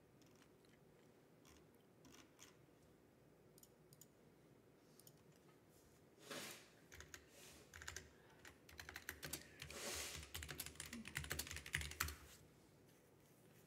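Typing on a computer keyboard: a few scattered key clicks, then a quick, dense run of keystrokes from about halfway through until shortly before the end.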